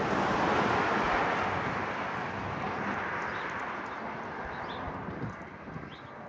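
A vehicle passing on the road, its tyre and road noise peaking about half a second in and then slowly fading away.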